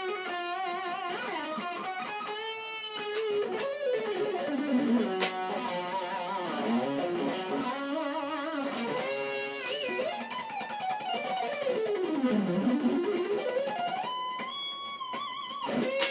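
Electric guitar playing a melodic lead solo: single sustained notes with wide vibrato, long slides down and back up the neck, and higher, faster notes near the end.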